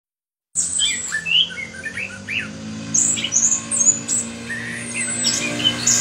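Orange-headed thrush (anis kembang) singing a rapid, varied song of short high chirps and sliding whistles, starting about half a second in. A steady low hum runs underneath.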